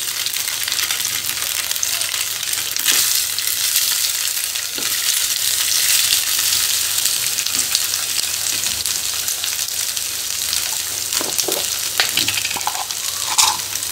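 Oil sizzling steadily in a frying pan as steamed rice balls are turned in a mustard-seed tempering and stirred with a spatula, with scattered light crackles.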